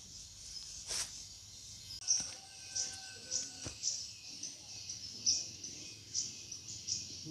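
Outdoor riverbank ambience of high-pitched wildlife chirping: short chirps repeating irregularly about twice a second over a steady high hiss. A single sharp click comes about a second in.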